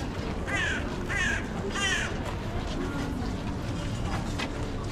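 A crow cawing three times in quick succession, over background crowd chatter.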